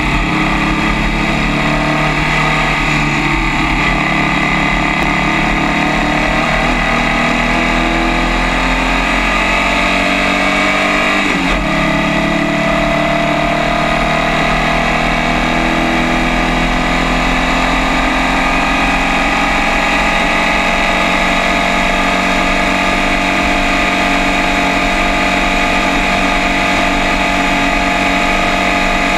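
Formula First race car's air-cooled Volkswagen flat-four engine at racing speed, heard from on board. The engine note climbs steadily, breaks once about a third of the way through at a gear change, then pulls slowly higher again as the car accelerates down the straight.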